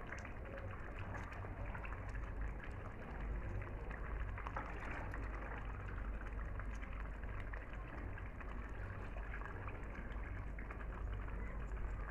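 Faint wet handling sounds of raw chicken pieces being lifted out of a basin of soaking water and dropped into a pot of stew, with water dripping and splashing, over a steady low hum and hiss.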